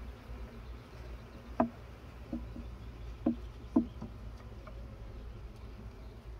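Wooden hive frames knocked and shifted with a metal hive tool in a wooden beehive body: a few sharp wooden knocks, three of them loud, about a second and a half in and twice more between three and four seconds in. Honeybees hum steadily around the open hive.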